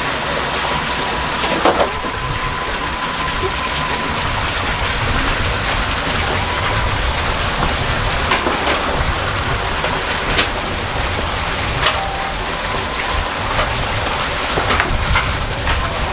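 A steady, rain-like hiss of noise with a few sharp clicks scattered through it.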